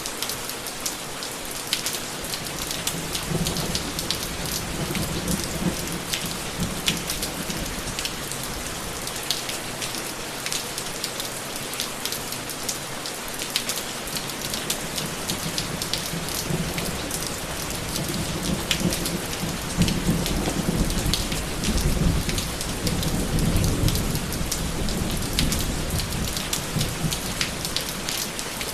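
Steady rain falling on a surface, with many fine pattering drops, and distant thunder rumbling low twice, briefly a few seconds in and longer and stronger past the middle.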